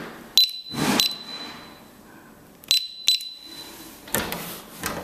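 Electronic door-lock keypad beeping as its buttons are pressed: four short high beeps in two pairs, each starting with a click.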